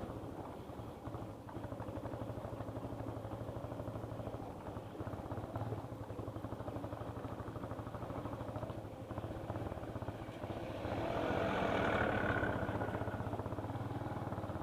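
Small motorcycle engine running under way over a rough, potholed road, with a rapid steady firing beat. The engine grows louder and higher about eleven seconds in, then eases off.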